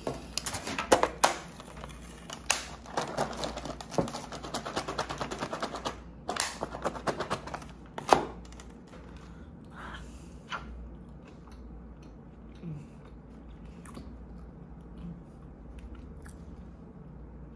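Close-up eating sounds from a meal of fish with tostones: a dense run of sharp clicks, crackles and crunches over the first eight seconds or so, thinning to a few faint clicks after that.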